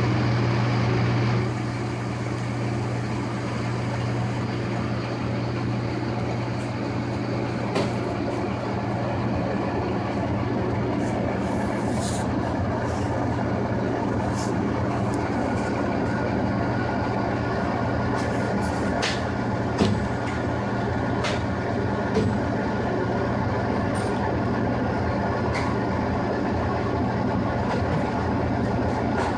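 Metal lathe running steadily with a low motor and gear hum while it spins a suppressor mono-baffle threaded onto a barrel, with scattered sharp clicks over the hum. The level drops slightly about a second and a half in.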